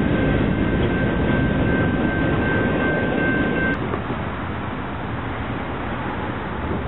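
Diesel freight locomotives, a BNSF EMD GP38-2 and GE Dash 8-40BW, running at a distance as a steady low rumble. A thin steady whine over the rumble cuts off abruptly with a click a little over halfway through.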